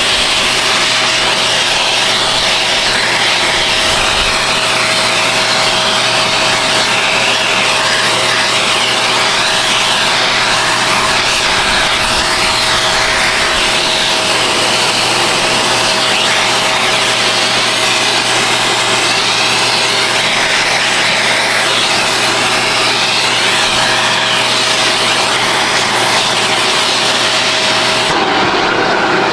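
Vacuum cleaner running steadily with a constant whine, sucking cat hair and dust out of the inside of a treadmill.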